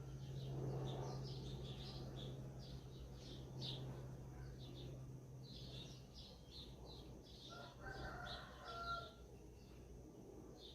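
Small birds chirping in quick, repeated short notes, with a rooster crowing about eight seconds in. A steady low hum stops about six seconds in.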